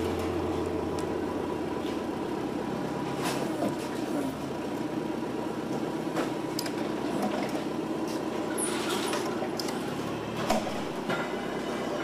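Machinery running steadily: a constant hum with a held tone, and scattered short clicks and clinks.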